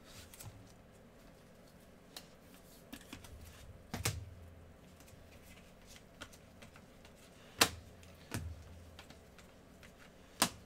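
Glossy trading cards being handled and flipped through by hands in nitrile gloves: soft shuffling with a few scattered sharp clicks as the cards snap against each other, the loudest about two-thirds of the way through.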